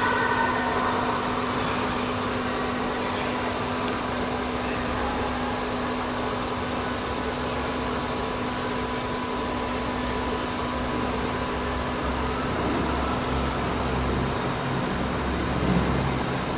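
Four-spindle CNC wood router running: a steady machine hum with a constant higher whine over a noisy wash. An intermittent low rumble comes and goes through the second half.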